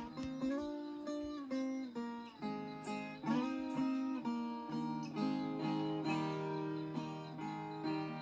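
Viola caipira playing an instrumental introduction: a melody picked a few notes a second, mostly in paired notes, over a ringing low string.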